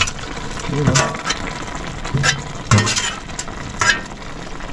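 Metal utensil knocking and scraping in a cooking pot as ground fish is stirred into a vegetable soup, several sharp clinks over a steady bubbling hiss from the pot.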